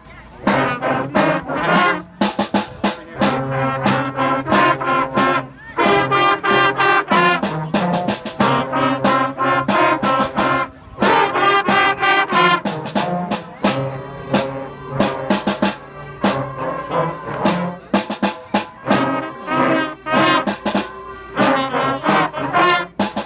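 School band of trombones, trumpets and other horns playing a tune together, with drum strokes keeping the beat.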